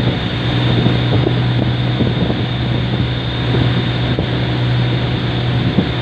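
Boat engine running steadily under way, a constant low hum, with wind buffeting the microphone and water rushing past the hull.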